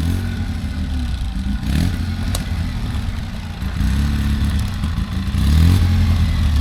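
Side-by-side UTV engine revving up and falling back several times under load in deep snow, loudest near the end.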